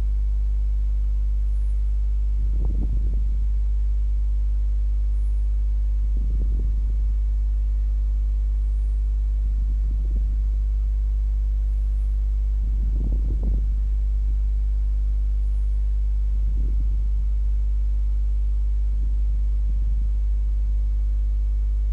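Steady low electrical hum, mains hum picked up by the recording, with a stack of even overtones. Faint soft low sounds come every three to four seconds.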